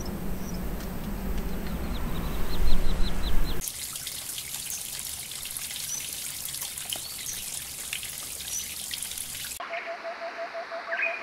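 Water of a small woodland stream trickling over rocks, with scattered bird chirps. Before it, about three and a half seconds in, a low rumbling background with a quick run of descending chirps; near the end it cuts to forest sound with a fast rhythmic pulsing call and bird calls.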